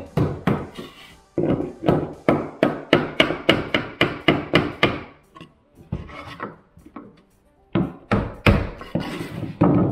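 Hammer tapping a block against the edge of a laminate floor plank, knocking it tight so its snap-together joint locks, in quick repeated wooden knocks about three a second. The knocks pause briefly a little past halfway and resume with a few harder ones near the end.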